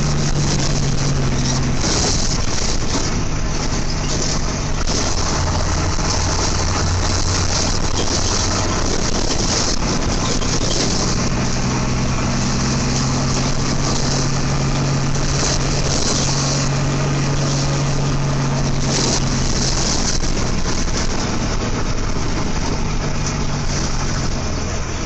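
Bus engine running: a steady low hum, stronger for several seconds at a time, under a loud continuous rush of road or traffic noise.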